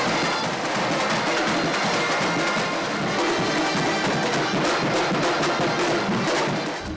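A marching drum band playing live: many snare drums and bass drums keep up a dense, steady beat.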